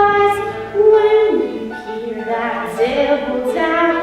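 School cast singing a musical-theatre song, female voices holding long notes that step down in pitch about a second in.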